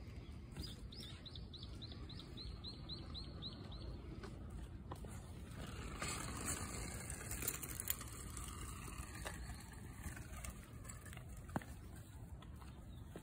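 A bird in the background calls a quick series of about a dozen short, high, falling chirps, about four a second, lasting some three seconds. A little later a broad rushing noise swells for a couple of seconds.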